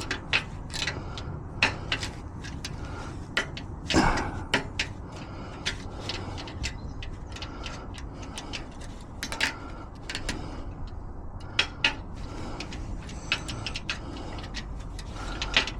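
Irregular small metallic clicks and ticks of lever-lock picking tools working the levers of a Viscount lever lock, which has square, anti-pick levers; the strongest click comes about four seconds in, over a low steady background.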